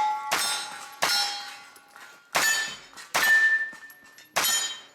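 Steel targets ringing as pistol-caliber carbine rounds hit them: five sharp hits about a second apart, each leaving a clear metallic ring that fades away.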